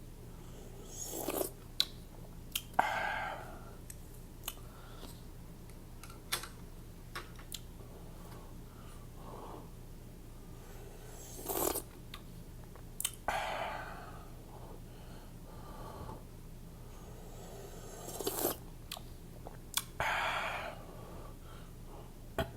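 Close-miked noodle eating: wet mouth clicks and smacks of chewing, broken by about six short, noisy slurps.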